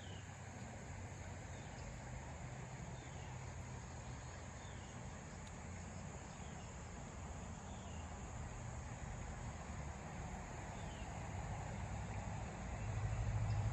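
Outdoor riverside ambience: a steady low hum and hiss, with faint short falling chirps every second or two. The hum grows louder near the end.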